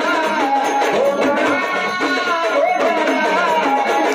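Live Marathi folk music for a gavlan song: a drum beats a steady rhythm under a wavering melody line.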